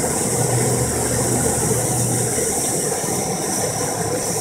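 Bernzomatic propane hand torch burning with a steady hiss, its flame held on an aluminium pipe to heat the joint so an Alumaloy repair rod melts onto it.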